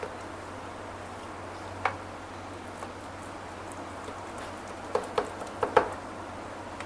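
Kitchen knife knocking against a metal baking tray while cutting coconut barfi into pieces: one click about two seconds in, then a quick run of four or five near the end, over a faint steady hiss.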